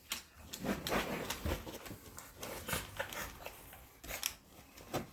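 A Shih Tzu roughhousing and playing wildly: irregular bursts of scuffling and rustling mixed with the dog's own play noises.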